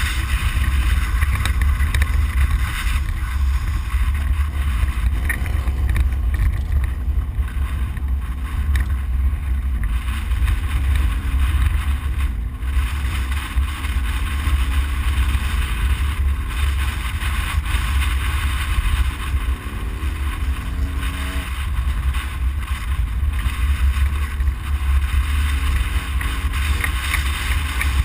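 Inside the cab of a Ford Explorer prerunner driving off-road: a loud, constant low rumble of engine, drivetrain and tyres on dirt, with a hiss over it. The engine note shifts and the level dips briefly about two-thirds of the way through.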